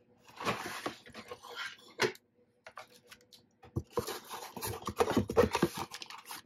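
Packaging being handled: a black moulded plastic tray lifted out of a cardboard box, and cardboard flaps and inserts rubbing and scraping. There is rustling about half a second in, a sharp click near two seconds, then a longer stretch of scraping and rustling with small knocks.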